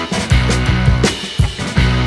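Background music with a drum beat over held bass notes.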